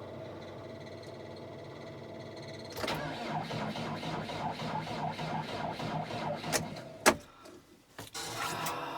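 A steady hum, then from about three seconds in a cold tractor engine cranks on its starter with a rhythmic pulsing for about four seconds without catching, ending in a loud clunk; a second short crank comes near the end. The engine does not start in the deep cold even after time on the block heater.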